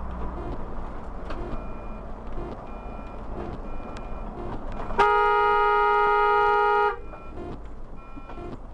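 A car horn blares once, a steady two-tone blast held for about two seconds, about five seconds in, over the steady engine and road noise of a car in city traffic.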